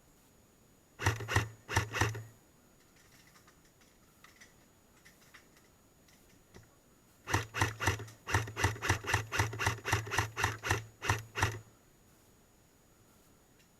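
Airsoft gun firing close by: a short string of shots about a second in, then a longer run of rapid shots from about seven seconds in, roughly five a second, with a low hum under each string.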